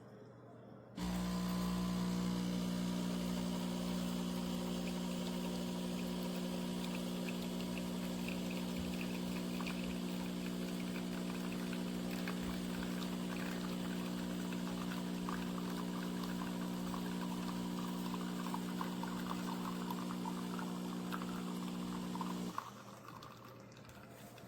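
De'Longhi Dedica Duo espresso machine's vibratory pump humming steadily for about 21 seconds as liquid pours and dribbles, typical of a shot being pulled; it starts abruptly and cuts off sharply.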